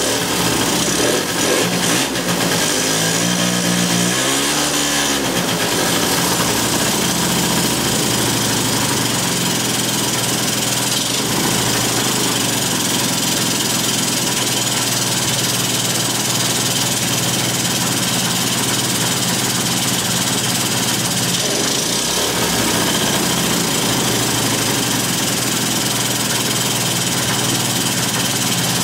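Yamaha Jog scooter's 50cc two-stroke engine running with its air filter off. A few seconds in its revs rise and fall, then it runs steadily. Its carburettor screws are being set because it will not yet hold a proper idle on its own.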